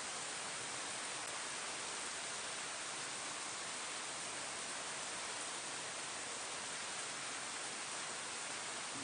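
Steady rain falling on leaves, an even hiss with no separate drops standing out.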